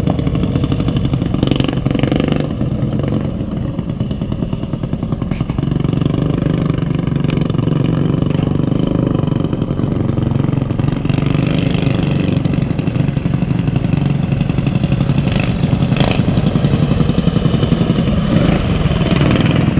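Racing lawnmower engine running hard and steadily, its rapid firing pulse unbroken, a little brighter in the second half.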